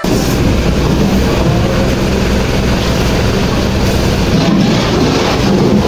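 Truck engine idling with a steady low hum.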